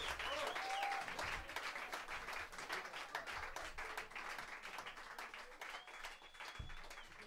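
Small audience applauding, with a few cheers in the first second and a short high held whistle near the end; the clapping thins and fades out.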